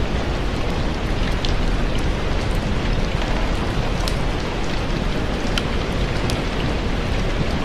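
Steady heavy rain, a dense even hiss with a deep low rumble, dotted with scattered sharp crackles.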